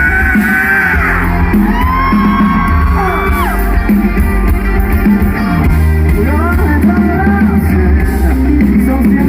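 Live rock music: a band playing drums, bass and guitar under a singing voice whose pitch glides between notes, with a heavy steady low end.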